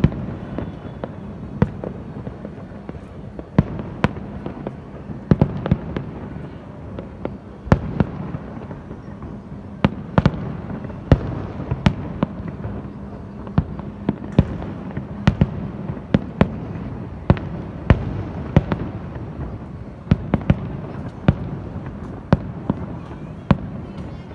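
Fireworks bursting: sharp bangs at irregular intervals, about one or two a second, over a continuous rumble of further explosions.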